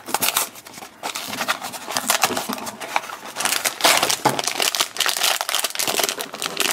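A cardboard blind box pulled open by hand, then its foil figure bag crinkled and torn open: a continuous crackling rustle of foil.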